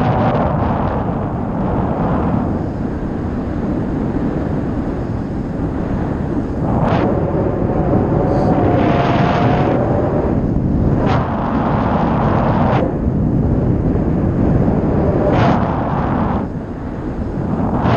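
Wind noise from airflow over the microphone of a paraglider pilot's camera in flight: a loud, steady rumble with several brief, sharper gusts.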